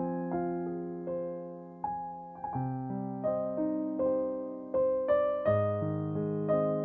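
Solo piano music: a slow melody of struck notes, each left to ring and fade, over held lower notes, with deeper bass notes coming in about two and a half and five and a half seconds in.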